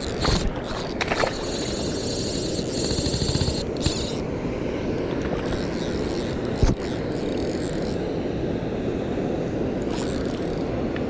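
A steady rush of water and wind noise, with a fly reel's drag buzzing for the first four seconds as a big hooked fish takes line. Handling knocks, with one loud thump about two-thirds of the way in.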